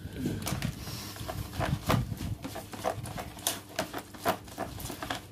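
Powdered fishing-bait mix being stirred with warm water in a container: an irregular run of soft taps and wet squelches, the loudest about two seconds in.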